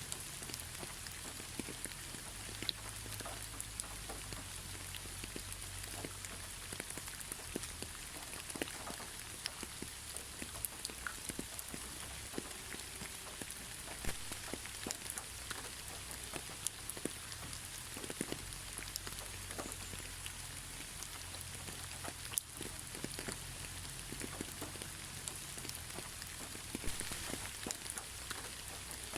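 Steady, moderate rain falling, with individual nearby drops striking a surface as sharp, irregular ticks.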